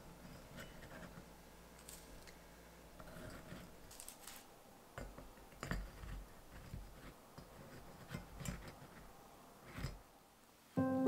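Crisp baked cookies being dropped one by one into a ceramic container: a scatter of light clicks and taps as they land against the sides and each other, with a few heavier knocks around the middle and just before the end. Soft music comes in right at the end.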